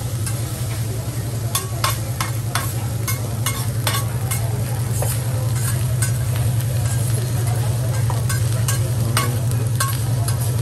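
Fried rice sizzling on a steel teppanyaki griddle as a metal spatula and fork scrape and clack against the hot plate, several sharp clacks a second at irregular intervals. A steady low hum runs beneath.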